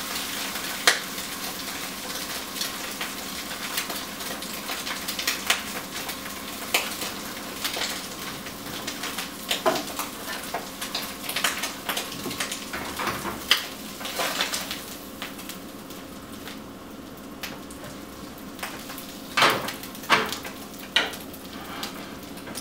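Food sizzling as it fries in a skillet, with scattered clicks and clinks of a utensil against the pan and dishes, and a few louder clanks near the end.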